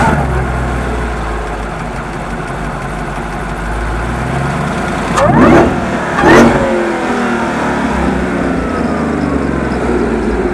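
Supercharged GM L83 5.3 Gen V V8, fitted with an LT4 supercharger, firing up and settling into idle. It is revved twice in quick succession, about five and six seconds in, each time rising and dropping straight back to idle.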